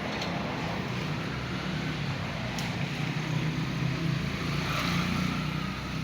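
A steady low engine-like hum under a noisy rush, growing a little louder in the second half.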